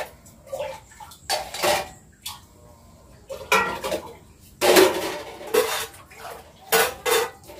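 Stainless steel kitchen vessels (a pot, its plate lid and a small tumbler) clinking and knocking together as they are handled, in a string of separate clatters with brief metallic ringing.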